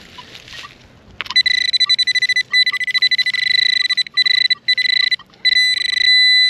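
Handheld metal-detecting pinpointer sounding a high electronic tone in rapid pulses with short breaks, becoming one solid continuous tone near the end as it closes in on a buried metal target.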